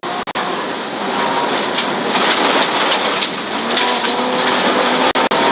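Inside a car driven fast on a gravel road: loud, steady gravel and tyre noise, stones crackling and rattling under the car, over the faint sound of the engine running. The sound cuts out briefly twice near the start.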